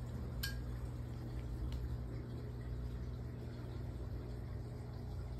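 Room tone: a steady low hum, with a sharp click about half a second in and a fainter click a little later.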